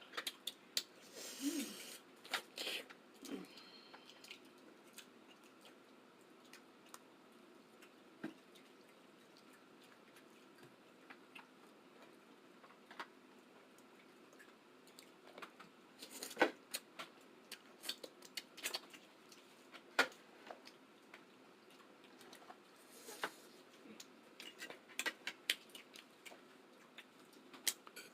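Messy eating sounds from a seafood boil: wet lip smacks and short chewing and sucking clicks. They come in scattered clusters near the start, around the middle and near the end, with a quieter stretch between.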